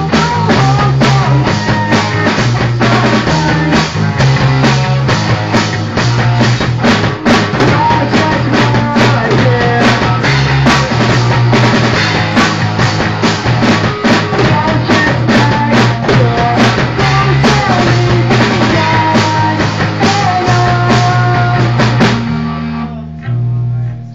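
Amateur punk rock band playing live: electric guitar, bass guitar and drum kit, with steady drumming throughout. About a second and a half before the end the band stops, leaving a guitar note ringing.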